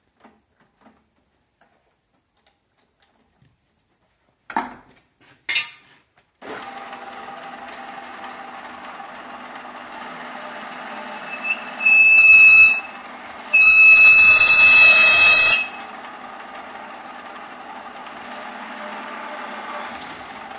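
Two knocks as the bit is fitted in the chuck, then the drill press motor starts about six seconds in and runs steadily. The twist drill screeches loudly twice as it cuts into 2 mm mild steel plate: a short bout, then a longer one of about two seconds.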